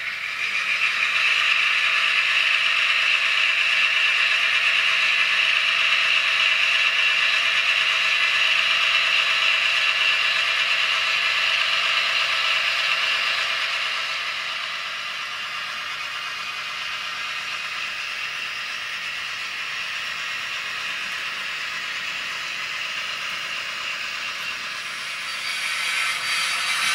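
Piko model of a DR class 118 diesel locomotive running along the track with its operating sound, a steady mechanical run. Louder in the first half, quieter from about halfway, and rising again near the end.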